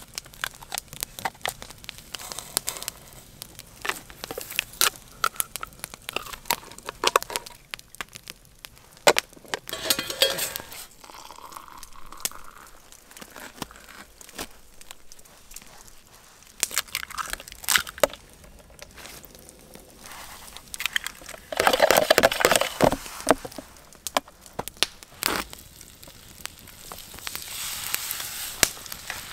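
Wood fire crackling with scattered sharp pops, mixed with handling noises of camp cooking, and a louder stretch of rustling about two-thirds of the way through.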